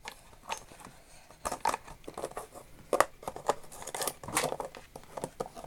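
Small metal tools being handled and moved about in a tool-chest drawer: irregular light clicks and clinks.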